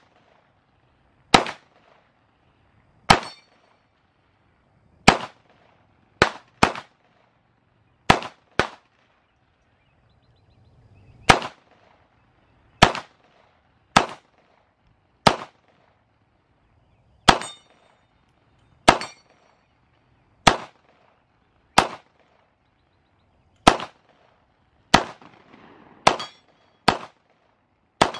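PSA MP5-style 9mm pistol fired in slow, deliberate single shots, about twenty of them one to two seconds apart, some in quick pairs. The shots hit steel plate targets, which ring with a short metallic ping.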